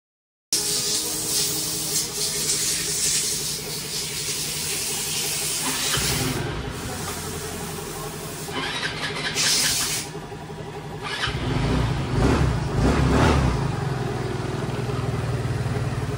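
Kymco Racing S150 scooter's single-cylinder engine running, its sound changing about six seconds in and growing louder and deeper about eleven seconds in.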